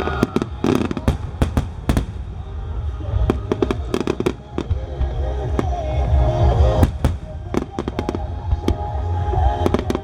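Starmine fireworks barrage: aerial shells bursting in rapid, irregular succession, sharp bangs several a second over a deep continuous rumble.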